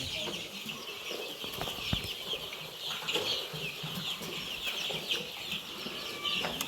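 A flock of three-week-old chicks peeping, many short high falling peeps overlapping without a break. There is a low thump about two seconds in.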